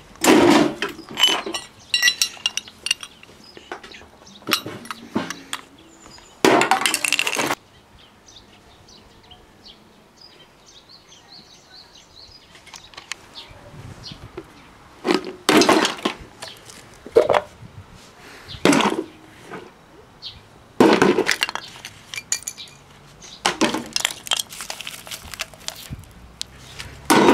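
Clinks and clatter of small scrap parts from dismantled household appliances being handled and dropped, metal and plastic pieces knocking together. The sounds come in irregular bursts separated by quieter pauses, the longest burst lasting about a second.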